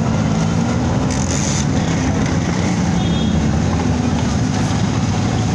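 Samosas deep-frying in a large wok of hot oil: a steady, dense sizzle and bubbling, over a steady low drone. A brief higher hiss comes a little over a second in.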